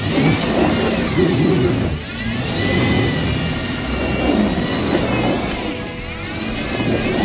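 Jeep Wrangler's engine revving up and down repeatedly as it crawls up a steep, rocky hill in low gear.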